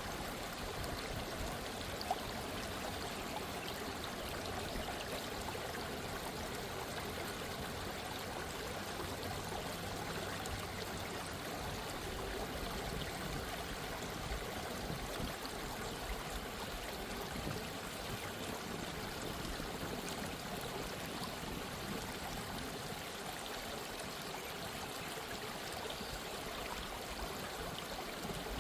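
Gently running stream: a steady babble and trickle of flowing water.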